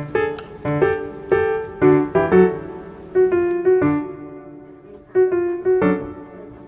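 Background music: a piano playing a light tune in short struck chords, each note dying away.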